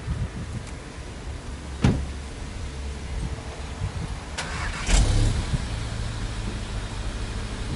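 2014 MK7 VW Golf GTI's stock 2.0-litre turbocharged four-cylinder, started about five seconds in and settling into a steady idle through its exhaust. A single sharp knock comes about two seconds in.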